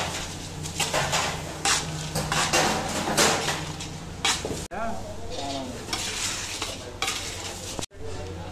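Roasted peanuts rattling and scraping against a large iron kadhai in repeated scoops as they are tossed with a steel plate, mixing them with pieces of pulled jaggery candy for gazak, over a steady low hum. About halfway through the scraping stops and the sound goes quieter.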